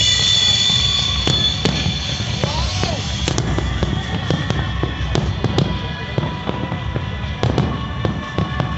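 Fireworks exploding: a quick, irregular string of sharp bangs and crackles over a constant low rumble.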